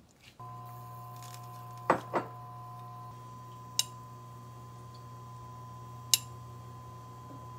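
Steady hum of an induction cooktop heating a pan, with sharp clinks of a metal spoon and glass jar against dishes: two close together about two seconds in, then single ones near four and six seconds.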